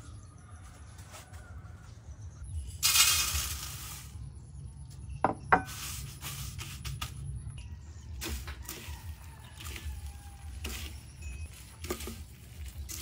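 Breadcrumbs being handled on a metal tray: a loud rustling rush about three seconds in, two sharp clicks soon after, then lighter scrapes and taps as the crumbs are spread by hand.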